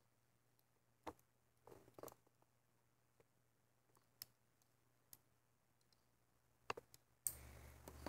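Faint, scattered clicks of a plastic loom hook against a plastic rubber-band loom as bands are hooked and looped over the pegs. Near the end a steady hiss and low hum come in suddenly.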